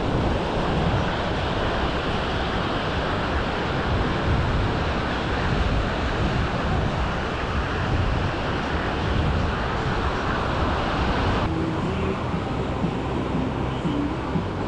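Steady rushing noise of wind on the microphone and surf on the beach, its hiss thinning a little about eleven seconds in.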